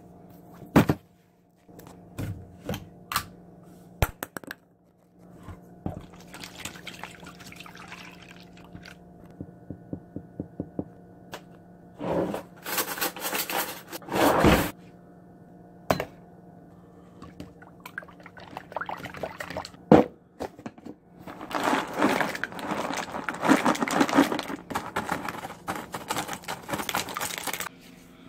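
Cereal poured into a metal pan in rattling bursts, followed near the end by a long stream of milk poured from a jug, splashing into the pan. A few knocks and clicks come before the pouring starts.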